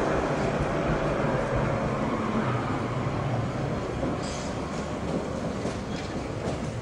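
Two-car electric tram pulling away from the platform: a steady rumble of wheels and running gear that slowly fades as it moves off, with a few short sharp clicks from about four seconds in.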